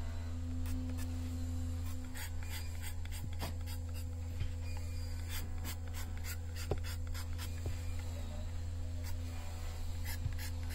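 A tool rasps and scrapes against wood in short, irregular strokes over a steady low electric-motor hum.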